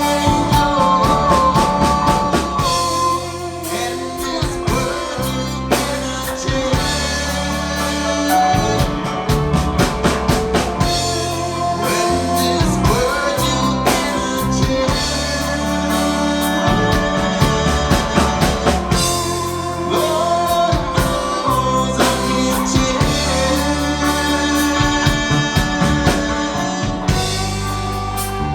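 A live rock band plays an instrumental passage between verses: a drum kit and bass keep a steady beat under sustained, gliding melodic guitar lines.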